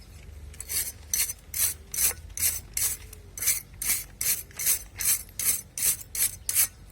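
Rhythmic back-and-forth scrubbing while cleaning the parts of a car radiator fan motor: about fifteen raspy strokes, roughly two and a half a second, starting under a second in.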